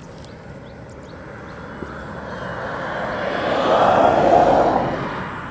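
A vehicle passing by, its noise building to a peak about four seconds in and then fading away.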